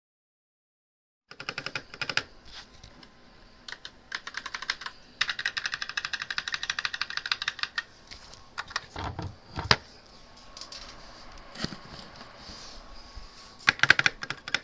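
Keys of an HK Gaming GK61 60% mechanical keyboard clacking under fast typing: runs of rapid keystrokes, a few heavier single strikes about two-thirds of the way in, and a fast loud flurry near the end.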